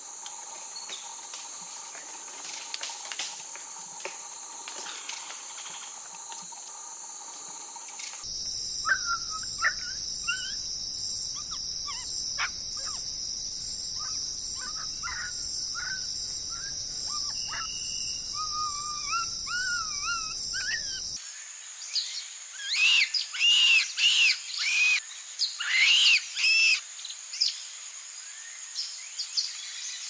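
Forest ambience with a steady high insect drone, which changes abruptly twice. Short chirping bird calls come in about a third of the way through, and a run of loud, rapid sweeping calls follows later.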